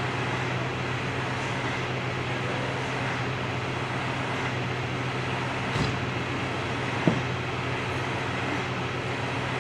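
Fire engine's diesel engine idling steadily, a low, even hum. A short knock comes about six seconds in and a sharper one about a second later.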